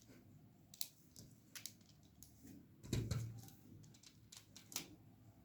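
A few faint, scattered clicks of plastic Lego pieces being handled, with a slightly louder knock about three seconds in.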